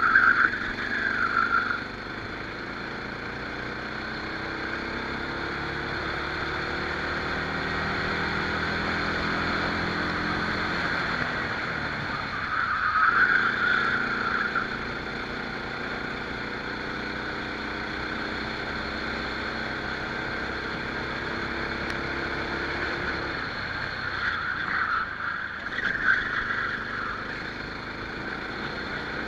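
Rental kart engine running flat out, its pitch climbing steadily down the straights and dropping twice as the kart slows for corners, with a short louder rush of noise at each slowdown.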